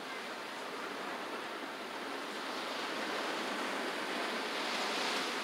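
Ocean surf breaking and washing up a sandy beach, the rush of a wave swelling through the second half and peaking near the end.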